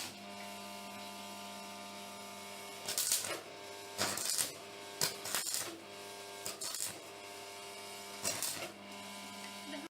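Welding machine humming steadily, with several short bursts of arc crackle as the arc is struck and held briefly, about five times over the last several seconds. The sound cuts off suddenly near the end.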